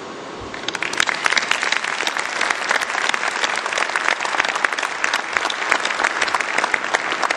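Audience applauding: many hands clapping together, starting just under a second in and continuing steadily.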